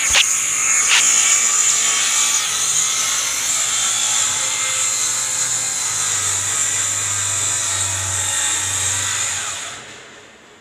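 Handheld circular saw cutting through phenolic-faced plywood, a steady high-pitched whine under load. Near the end the saw is released and winds down to quiet.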